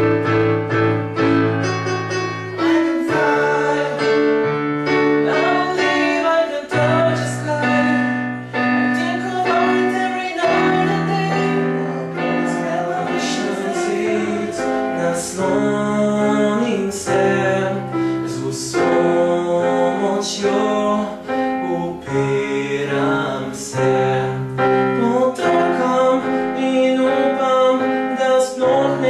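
Singing to an electronic keyboard, which holds long chords under a wavering vocal line.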